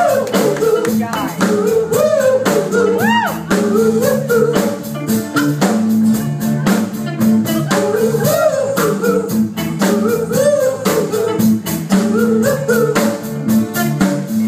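Live blues-rock band playing between sung lines: a drum kit keeps an even beat under a bass line, while a lead instrument plays a melody with bending notes.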